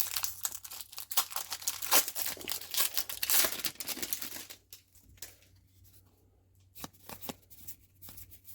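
A trading card booster pack's wrapper being torn open and crinkled by hand for about four and a half seconds, followed by quieter handling with a few soft clicks as the cards are drawn out.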